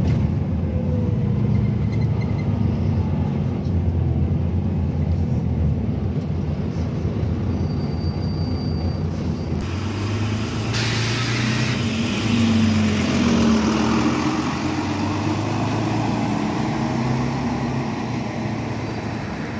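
Volvo B9TL double-decker bus's diesel engine running steadily, heard from inside the bus. About ten seconds in, a short loud hiss of compressed air, then the engine note rises and falls as the bus pulls away.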